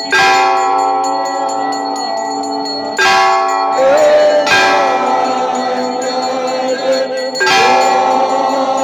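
Temple bells rung for an aarti: three loud strokes about three to four seconds apart, each ringing on over continuous bell clangour.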